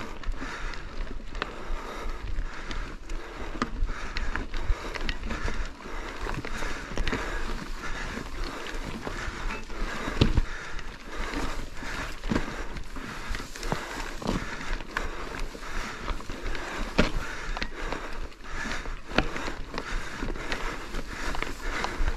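Mountain bike rolling over a rocky trail: a steady run of tyre noise with frequent sharp knocks and rattles as the bike goes over stones, the heaviest knock about ten seconds in.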